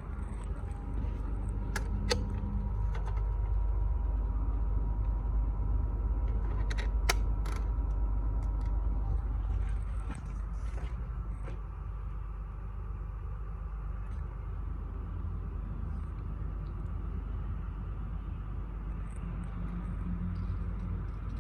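Daikin mini split air conditioner running with a steady low rumble and a faint steady tone that stops about nine seconds in; a few light clicks sound in the first several seconds.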